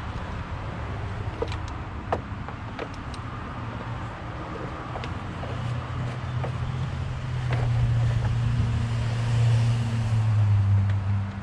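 A vehicle engine running steadily, growing louder in the second half, with scattered light clicks over it.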